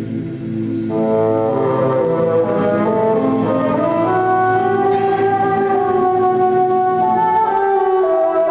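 Bassoon playing slow, held notes over a choir sustaining chords beneath it, the notes changing every few seconds.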